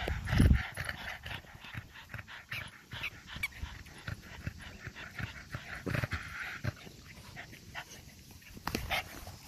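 Dogs playing and scuffling in grass, panting, with a couple of brief high whines about three seconds in. A low thump sounds just after the start.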